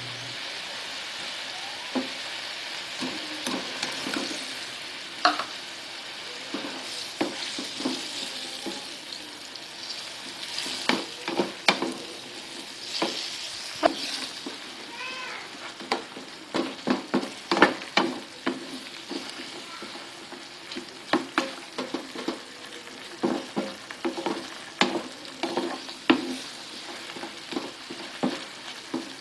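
Food sizzling in a frying pan while being stirred, with a utensil clacking and scraping against the pan over and over. The hiss of the frying is strongest over the first few seconds, and the knocks come thicker in the second half.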